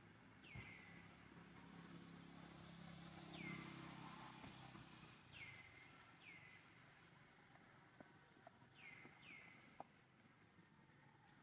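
Faint, repeated short bird calls, each sliding quickly down in pitch and ending on a brief steady note. There are about seven calls, some in quick pairs, over quiet outdoor background with a few faint ticks.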